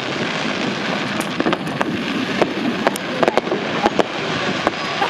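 Fireworks going off: an irregular string of sharp cracks and pops, several a second, over a steady noisy rumble.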